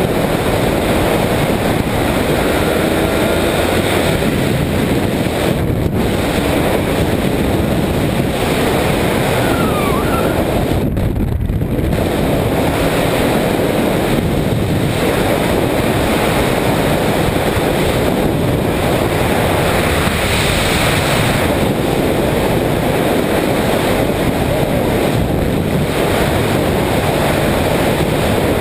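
Steady wind rush buffeting the microphone of a camera on a moving motorcycle, with road and engine noise underneath.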